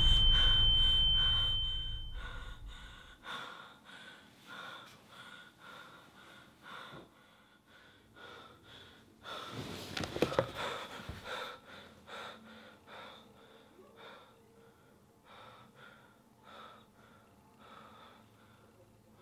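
A woman gasping and breathing hard, with a rustle of bedding about ten seconds in as she reaches across the bed. A high steady tone and a low rumble fade away over the first two seconds.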